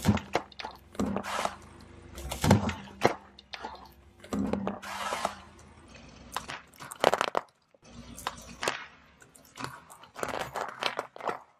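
A car tire rolling over and crushing blocks of floral foam, a run of sharp, irregular crunches as the foam breaks and crumbles. After a short break, sharper cracks come as the tire rolls onto plastic freeze-pop tubes and bursts them.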